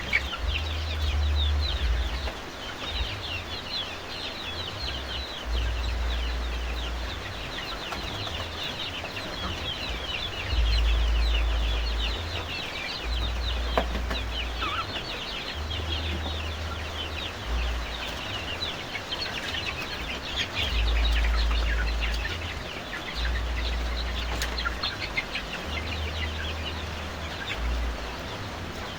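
A flock of village chickens calling: a dense, continuous chatter of short high peeps and clucks, with intermittent low rumbles underneath.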